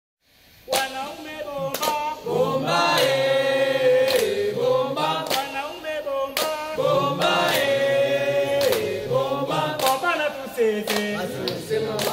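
A song begins just under a second in: a choir of voices singing sustained notes in harmony, over a sharp beat about once a second.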